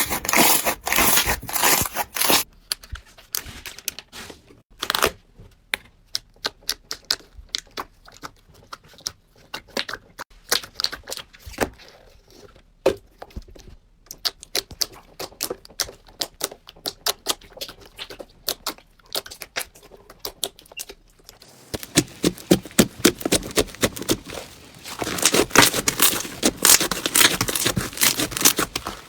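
Crunchy slime being squeezed, poked and stretched by hand, crackling and popping. It starts with dense crackling, turns into a long run of separate sharp pops and clicks, and about three quarters of the way through becomes dense crackling again.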